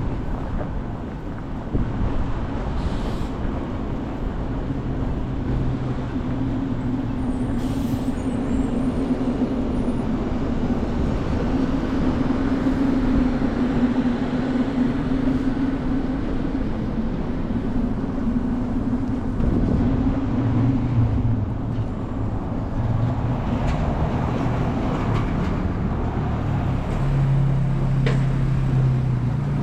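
Downtown street traffic: motor vehicles running and passing, with a steady low engine hum that drops in pitch in the last few seconds.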